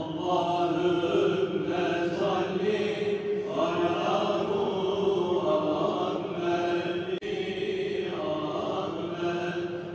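A voice chanting in long, held, wavering notes, with no instruments.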